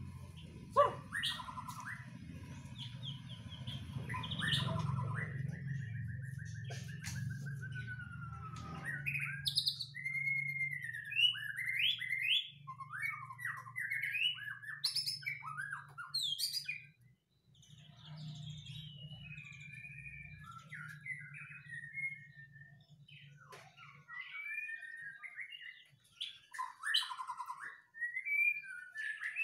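Young male white-rumped shama singing from its cage: varied whistled phrases and quick trills that leap up and down in pitch, with short pauses between them. A low steady hum runs beneath and cuts off a few seconds before the end.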